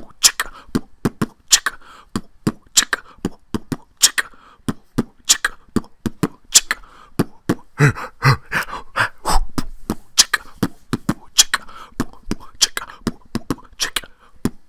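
Beatboxing: a steady rhythm of sharp clicks and snare-like hits, with a strong accent about every second and a quarter.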